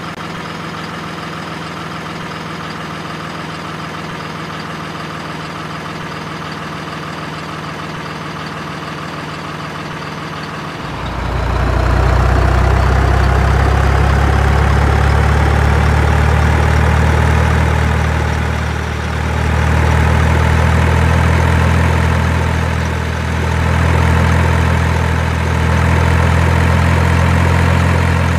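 Truck engine sound effect idling steadily. About eleven seconds in a louder, deeper diesel-like engine sound comes in and keeps running, dipping briefly twice.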